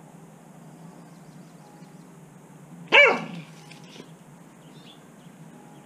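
An Australian cattle dog barks once, a single sharp bark about halfway through that drops in pitch as it ends.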